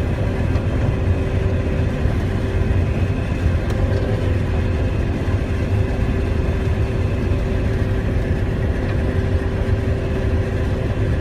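John Deere 9600 combine running steadily under harvest load: a constant low engine rumble with a steady machinery hum, heard from inside the cab.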